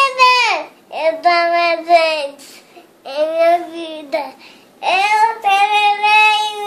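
A three-year-old boy singing a Portuguese gospel song unaccompanied, in long held phrases with short breaks for breath between them.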